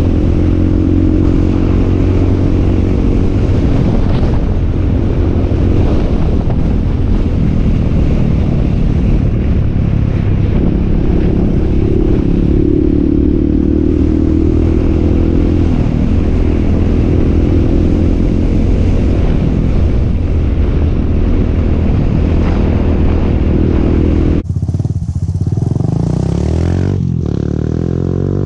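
Suzuki DR200's single-cylinder four-stroke engine running at a steady trail speed, heard from on the bike. About four seconds before the end the sound cuts to the bike heard from the trailside as it approaches, its engine note rising as it nears.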